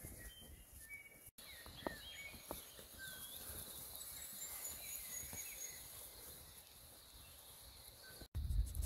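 Wild birds calling faintly: scattered short chirps and whistles, some gliding in pitch, over a low background rumble. Near the end the sound drops out briefly, and a louder low rumble takes over.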